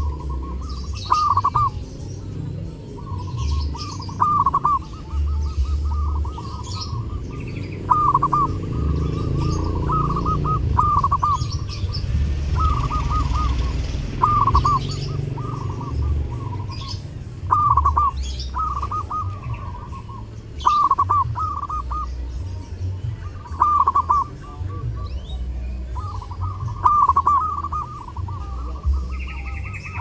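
Zebra dove (perkutut) singing its cooing song over and over, each phrase a quick run of short notes, repeating every two to three seconds. A steady low rumble runs underneath.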